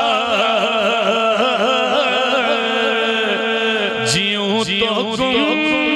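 A man singing an Urdu naat into a microphone, drawing out a long wavering melismatic phrase between lines of the verse, amplified through a PA system.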